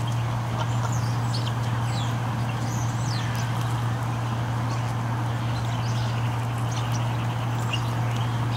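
Birds calling in short, frequent chirps over a steady low hum.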